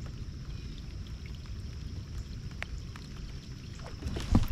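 Low wind rumble on the microphone with a few faint clicks. About four seconds in come a knock and a burst of splashing water at the kayak, as a hooked fish is reeled in alongside.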